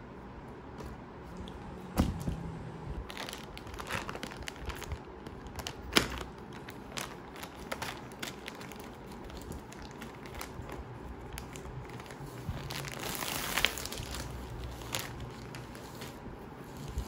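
Something being handled: scattered crinkling and light clicks, with two sharp knocks about two and six seconds in and a denser run of crinkling near the end.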